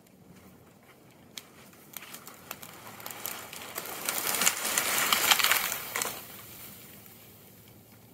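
A felled pine tree that had been hung up in two neighbouring trees breaks free and falls. A few sharp cracks of wood come about a second and a half in, then a crash of branches and sliding snow swells through the canopy, peaks midway and dies away.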